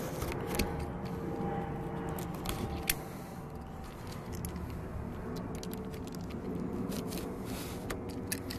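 A small safety box cutter slicing through packing tape along a cardboard box seam: scattered scraping and small clicks over a steady low hum.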